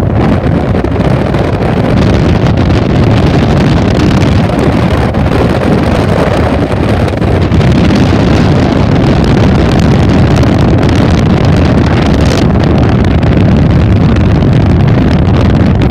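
A pontoon boat running under way: a loud, steady rush of wind buffeting the microphone over the hum of the boat's motor.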